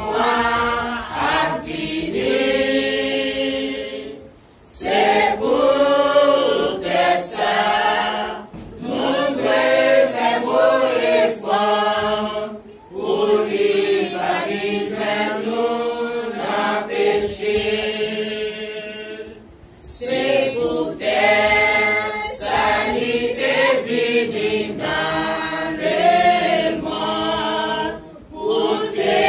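Congregation singing a hymn together, unaccompanied, in long sung lines with a short break for breath between them.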